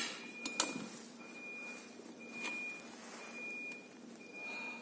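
An electronic beeper sounds steadily, one half-second beep about every second, over a low hum. There are sharp clicks in the first second as buttons on a construction hoist's control box are pressed.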